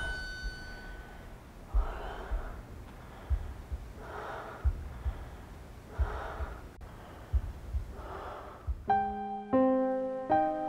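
A woman breathing heavily, with a long ragged breath about every two seconds and dull low thuds between them. Piano notes start near the end.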